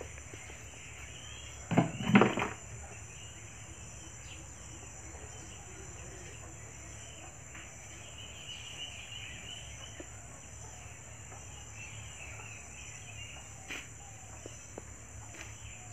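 Steady high-pitched insect drone, with a brief loud double burst about two seconds in.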